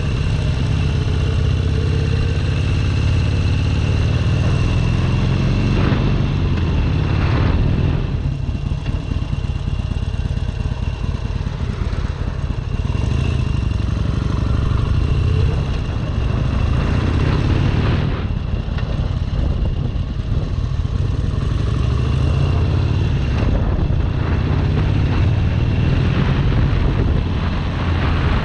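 Harley-Davidson Sportster Seventy-Two's 1200 cc air-cooled V-twin running under way on the road. It rises in pitch as it accelerates over the first few seconds, then carries on at a steady pace.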